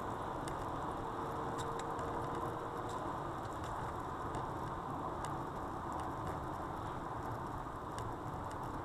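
Steady road and engine noise inside a car's cabin at highway speed, picked up by a dashcam mounted on the rear-view mirror, with scattered faint ticks.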